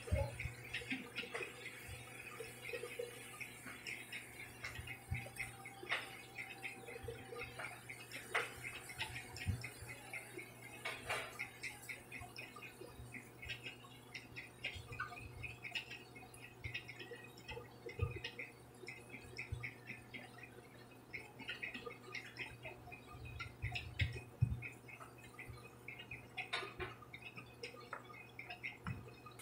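Faint small scrapes and clicks of a thin blade working along a phone's frame, prying the power and volume button flex cable loose, over a low steady hum.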